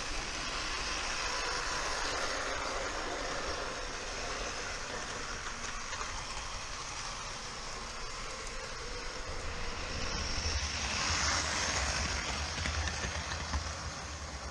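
Vintage Märklin HO model train running on metal track: a steady whirr of the electric motor and wheels, growing louder with a low rumble about ten seconds in.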